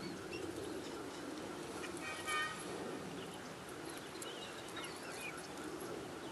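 Rural outdoor ambience with birds chirping faintly here and there, and a brief horn-like toot about two seconds in.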